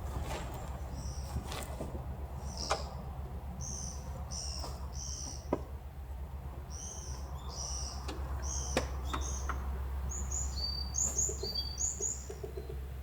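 Small birds chirping: many short, high calls repeated throughout, coming quicker near the end. A few sharp clicks or taps and a steady low rumble run underneath.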